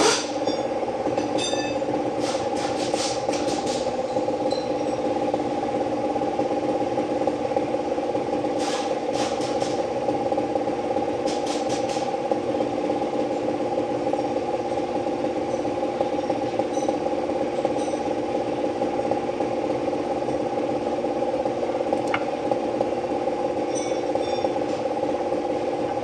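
A steady machine hum running throughout, with short clusters of light metallic clinks and rattles as aluminium engine parts are handled and set down.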